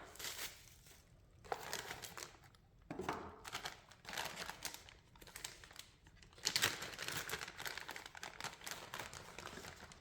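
Packaging being handled and crinkled while parts are unpacked, in irregular rustling bursts, loudest a little past halfway.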